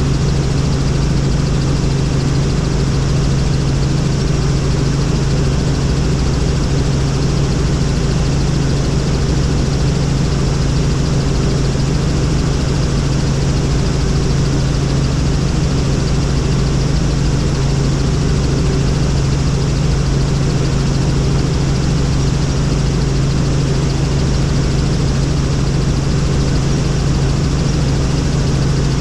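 Helicopter in flight: a steady, loud drone of engine and rotor with a constant low hum, unchanging throughout.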